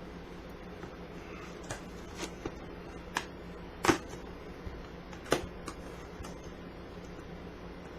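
A product box being handled and worked open: a series of sharp, separate clicks and knocks, the loudest about four seconds in, over a faint steady hum.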